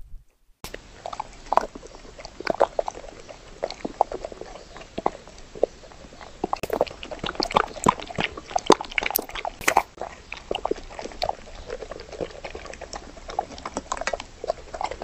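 Golden retriever eating freeze-dried meat pieces moistened with pet milk: a quick, irregular run of crunching and chewing that starts about half a second in.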